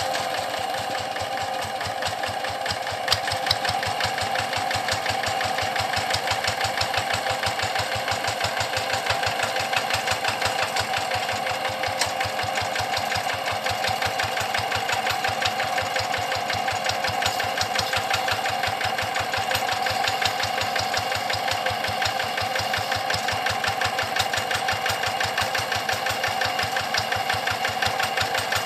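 Single-cylinder diesel engine of a Quick G1000 hand tractor running steadily with an even, rapid knocking beat.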